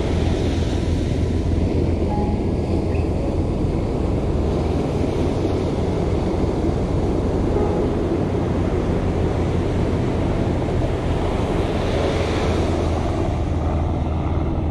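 Ocean surf washing on a beach, a steady rush that swells with breaking waves about a second in and again near twelve seconds, with wind rumbling on the microphone.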